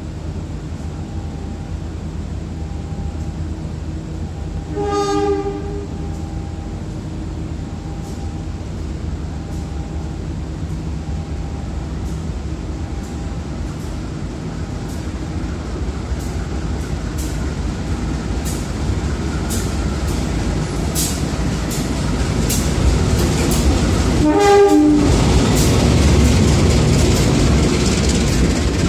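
A train approaching over a steady low rumble, sounding its horn in a short blast about five seconds in and a longer one near the end. Wheels clicking over rail joints grow louder through the second half as it draws close.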